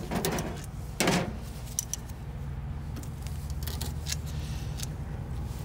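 Scattered clicks, knocks and light clinks of hands working gummy, heat-softened duct tape off a truck's exhaust pipe, with a sharper knock about a second in, over a steady low rumble.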